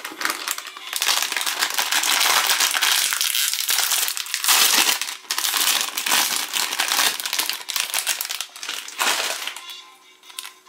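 The foil-lined plastic wrapper of a Chipicao croissant crinkles as it is handled and opened, in loud rustling bursts with a few brief pauses.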